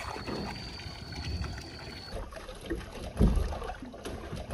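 Water from a garden hose running and splashing into a filled bathtub, with sloshing in the tub. A loud low thump about three seconds in.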